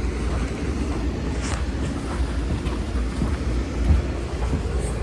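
Wind buffeting the microphone: an uneven low rumble under a steady rushing noise.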